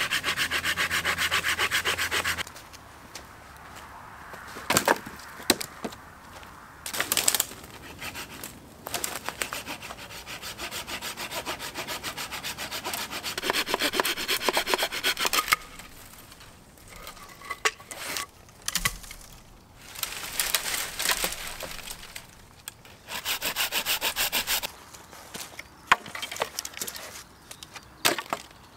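A Bahco Laplander folding saw cutting through green branches in several bursts of quick, even strokes. Sharp cracks of wood snapping fall in the pauses between cuts.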